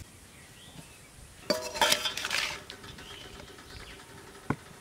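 Metal cookware clinking: a quick cluster of knocks about one and a half seconds in, with a pot ringing on briefly afterwards, then a single sharp tap near the end.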